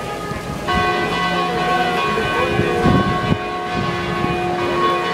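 Church bells ringing, with a fresh stroke sounding about a second in and another near the end, each note hanging on and ringing.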